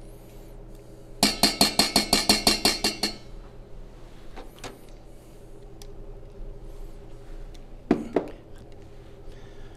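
A spoon rapping about a dozen times in quick succession against a bowl, knocking ricotta cheese off the spoon, each tap ringing briefly. A single sharp knock of kitchenware follows about eight seconds in.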